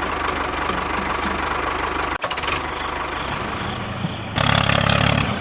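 An engine running with a steady fast pulse, cut off sharply for a moment about two seconds in, then a louder buzzing stretch near the end.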